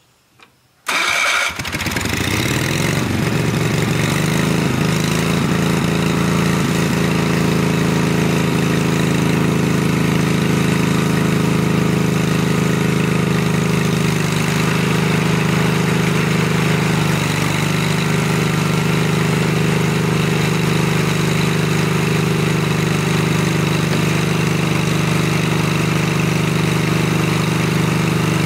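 Wheel Horse D-180 garden tractor's engine driving a rear rototiller through the PTO clutch. The sound cuts in about a second in, the engine pitch rises over a second or two, then it runs steadily under tilling load.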